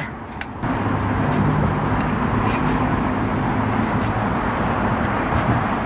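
A motor running steadily with a low, even hum under a noisy wash, starting abruptly about half a second in.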